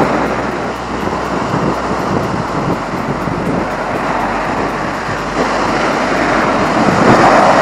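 Pacific surf breaking and washing up a sand beach, a steady rushing that swells louder near the end as a wave runs in.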